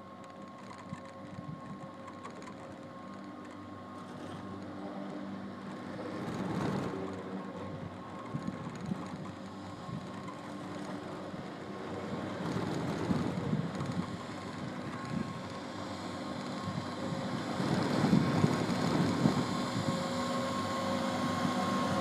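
Doppelmayr detachable chairlift in motion: the haul rope and chair running over tower sheave wheels with a rumble and repeated clacking. The sound grows steadily louder as the chair nears the terminal, where a steady machinery hum rises over it near the end.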